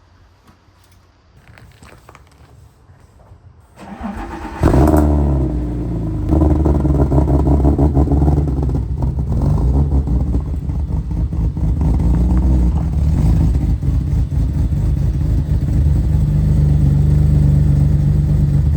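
Nissan S13 drift car's engine cranking and starting about four seconds in, flaring loud as it catches, then settling into a steady idle.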